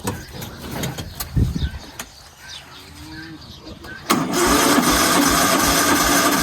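A motor starts abruptly about four seconds in and runs loud and steady with an even low pulse. Before that come scattered small knocks and handling noises.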